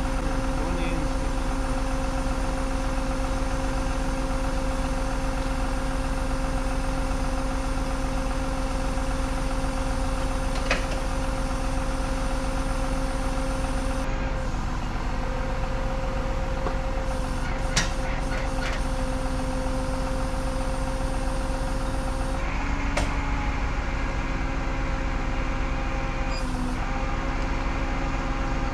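Tow truck's engine running steadily at a constant speed, with a few sharp clanks about ten seconds in and a couple more around eighteen seconds; its tone shifts slightly near the end.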